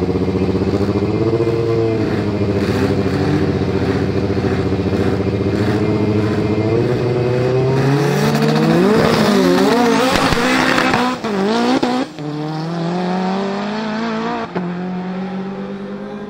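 Two turbocharged front-wheel-drive drag cars held at high revs on the start line, with a regular pulsing stutter like a bouncing rev limiter. About eight seconds in they launch: the engine notes climb and drop through quick gear changes, then settle and fade as the cars pull away down the strip.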